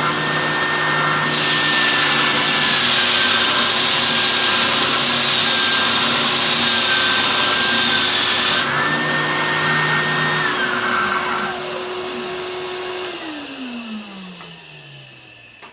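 Triton 450W oscillating spindle and belt sander running with a vacuum cleaner drawing off the dust, as a piece of rough sawn timber is sanded: a loud rasping hiss from about a second in to about nine seconds. Then the machines are switched off, one whine stopping and the motor hum falling in pitch as it winds down near the end.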